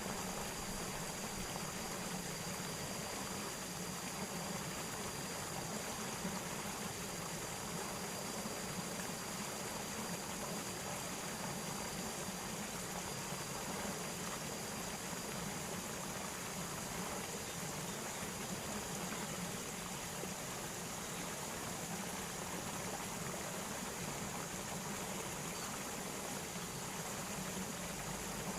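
Steady rushing noise like flowing water, with a faint thin high tone over it.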